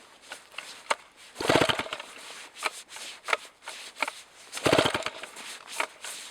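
Two pull-start attempts on a Jobu Tiger 93 cc chainsaw, each a half-second burst of the engine being cranked over that fails to catch, with small handling clicks between. The saw refuses to restart, which the owner puts down to the carburetor and excess gasoline.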